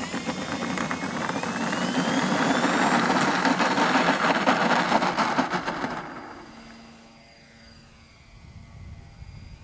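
Twin propeller motors of an RC model DHC-6 Twin Otter throttling up for a takeoff roll, with a whine that rises in pitch over the first few seconds. About six seconds in, the sound drops off sharply and stays faint as the plane draws away.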